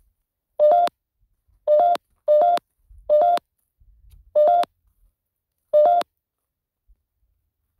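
Six short, identical electronic beeps from the ghost-hunting app on the phone, each a quick two-note chirp, coming at uneven intervals over about five seconds and then stopping.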